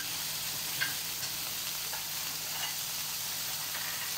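Minced-meat kefta patties sizzling steadily in an electric frying pan, cooking in their own fat with no oil added.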